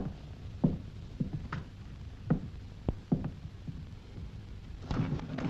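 Irregular soft knocks and thuds in a room, scattered one every half second to a second, bunched together near the end.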